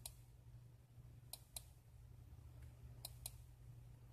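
Faint computer mouse clicks: one right at the start, then two quick double clicks about a second and a half apart, over a faint steady low hum.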